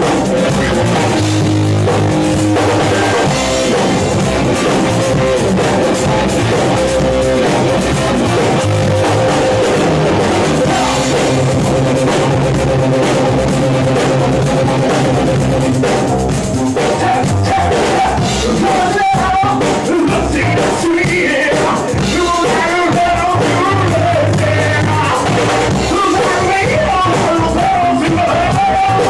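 A rock band playing live in a rehearsal room: drum kit and electric guitar, loud and steady. A voice sings into a microphone over the band from about halfway through.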